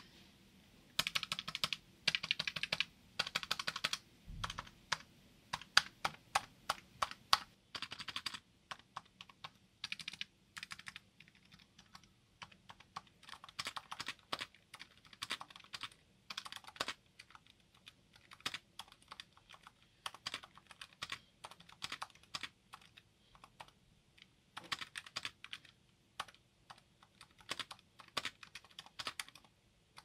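Typing on a Razer Huntsman Mini 60% keyboard with linear red optical switches: very quiet key clacks in fast runs, with slower single taps between. The typist puts the quietness down to the switches' built-in sound dampeners.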